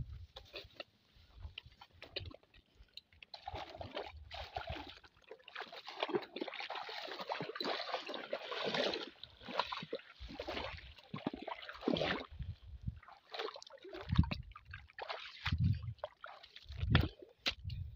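Feet wading through shallow muddy water, an irregular run of sloshing and splashing steps, followed by a few heavier low thuds of steps in the mud near the end.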